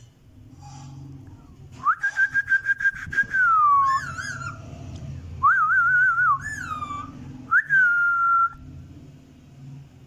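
Indian ringneck parakeet whistling a string of clear notes: a long held note that slides down, then wavering, warbled whistles, and a last note that dips and holds.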